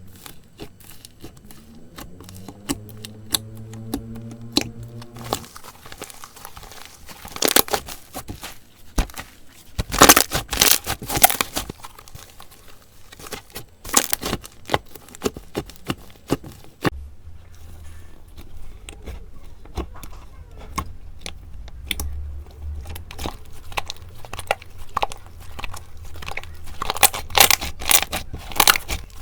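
Slime being pressed and worked by hand, making many sharp crackles and pops, with loud clusters about ten seconds in and again near the end. A short rising squeal comes a few seconds in.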